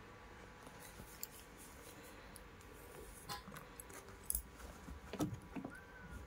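Scattered soft clicks and rustles of a cat moving about on bedding, with a faint short cat mew near the end.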